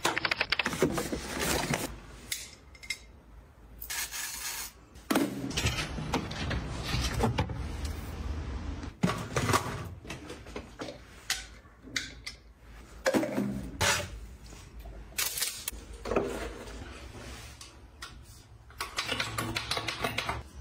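Close-up handling sounds of small household products and their packaging: irregular taps, clicks and rustles.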